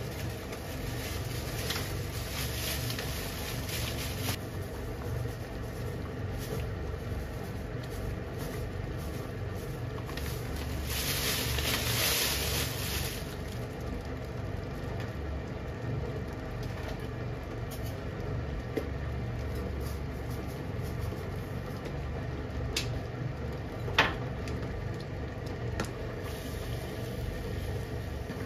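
Curry simmering in a frying pan on a gas stove, bubbling steadily over a constant low hum. A hiss swells briefly about halfway through, and there are a couple of sharp knocks near the end.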